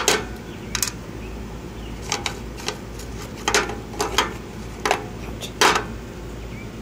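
Scattered sharp clicks and short scrapes, about ten at irregular intervals, as the grilled fidget spinner is handled and freed from the cooked pork.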